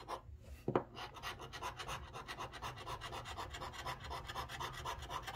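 A metal scratching tool scraping the coating off a paper lottery scratch ticket: a light tap under a second in, then a rapid, even run of short scraping strokes, about nine a second.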